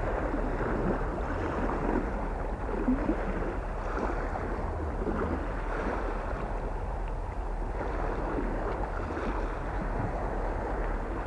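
Steady wind rumbling on the microphone, with small waves washing against the shore.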